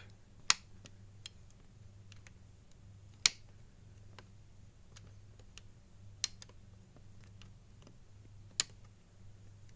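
Number drums of a Rimowa TSA combination lock being turned by hand, with four sharp clicks a few seconds apart and faint ticks between them as the drums step from digit to digit. A low steady hum runs underneath.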